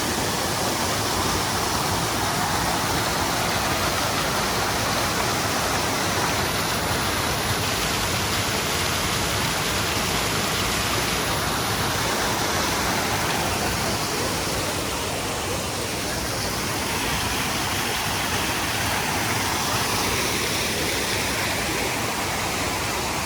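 Loud, steady rush of fast-flowing water, a stream swollen by heavy rain.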